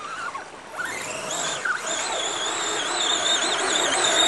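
Scale RC crawler truck's electric motor and drivetrain whining, starting about a second in, the pitch wavering up and down as the throttle is worked.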